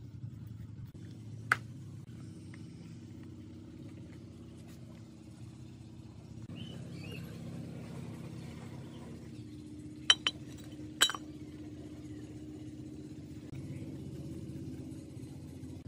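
Sharp metallic clinks from the parts of an old gearbox shifter housing being unbolted and handled: one about a second and a half in, then three close together around ten to eleven seconds, over a steady low hum.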